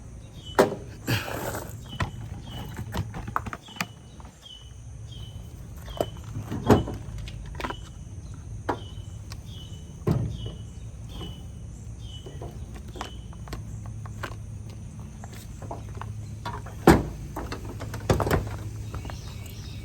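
Scattered knocks and clatters of gear being handled, the loudest about 7, 10 and 17 seconds in, over a steady low hum. A short high chirp repeats in an even rhythm, about every half to one second, through the first two-thirds.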